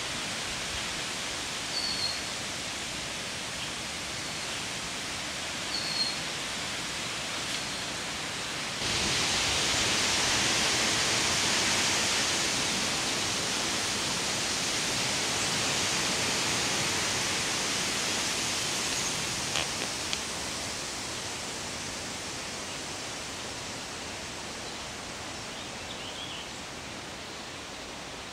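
Steady rushing outdoor background noise that gets suddenly louder and brighter about nine seconds in, then slowly eases off. Two short, high bird chirps come early.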